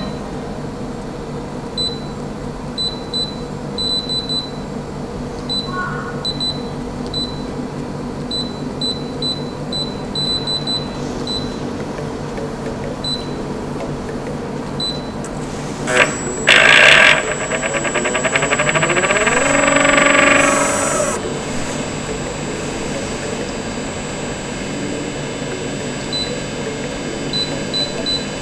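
AGI Homo Mixer vacuum emulsifying kettle running with a steady machine hum and short high ticks. About halfway through there is a sudden loud rush, a steady high whine sets in, and a rising sound builds for a few seconds and then dies away.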